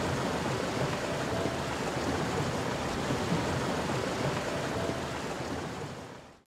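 Steady hiss of outdoor background noise carrying on from the last outdoor scene, fading out near the end.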